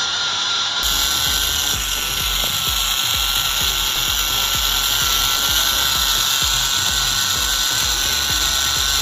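Small electric DC motor whirring steadily with a slightly wavering whine, getting louder and brighter about a second in, over background music.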